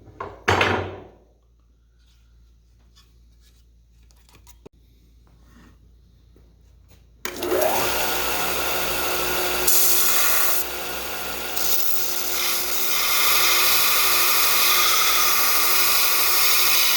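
A sharp clank with a short ring about half a second in, then a few faint clicks. About seven seconds in, an electric power tool spins up and runs steadily, with a hiss that brightens and shifts as it works.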